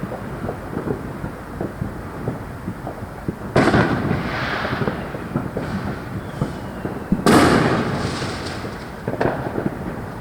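Fireworks going off. Two loud bursts about four seconds apart each trail off in a long rolling rumble, and a smaller bang comes near the end. Many small distant pops and crackles run underneath.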